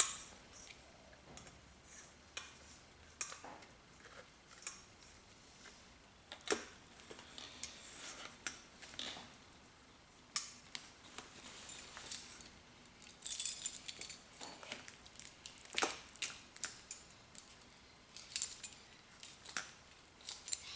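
Scattered light clicks and small metallic clinks of hands working on the motorcycle's wiring, handling plastic connectors and small parts, with short pauses between.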